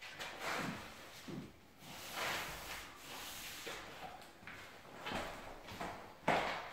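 Hands sliding along and pressing metal-reinforced drywall corner tape onto the corner of a door opening: a series of dry rubbing swishes, the loudest about six seconds in.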